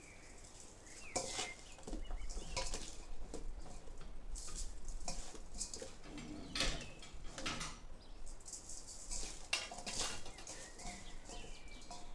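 Sliced eggplant being handled and turned over in a stainless steel bowl: irregular soft rustles and light clatters against the metal, starting about a second in.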